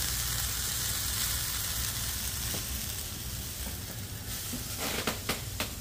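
Sliced karela (bitter melon) sizzling steadily in a frying pan as it is stirred with a wooden spoon, with a few short knocks of the spoon against the pan near the end.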